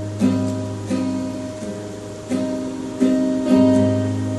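Live song accompaniment: acoustic guitar strumming chords in a short instrumental passage with no singing, a new chord struck about every second over a steady low note.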